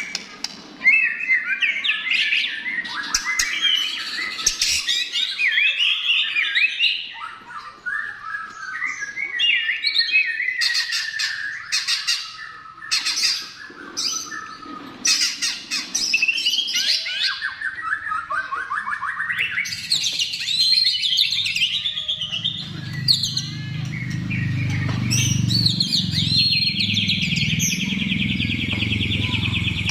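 White-rumped shama singing a fast, varied song of whistles, trills and harsh clicking notes, ending in a sustained buzzy trill. A low background rumble joins in for the last third.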